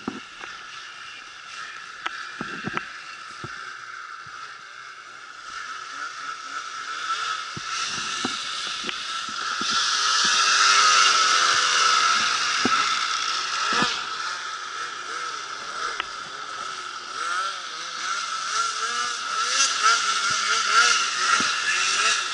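Snowmobile engines running and revving up and down as sleds climb a powder slope. They grow loudest about ten to twelve seconds in as a green Arctic Cat climbs past close by, and swell again near the end.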